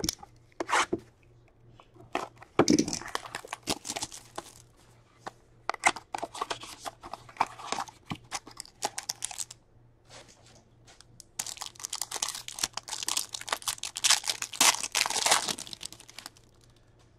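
Plastic wrapping on a box of hockey cards being torn open and crinkled, in irregular bursts with a pause in the middle and the busiest tearing in the last few seconds.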